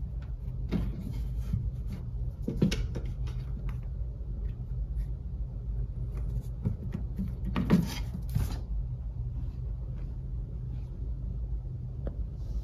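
Cat batting and nosing a fabric toy mouse across a hardwood floor: scattered light knocks and scuffs, the busiest clatter about eight seconds in, over a steady low hum.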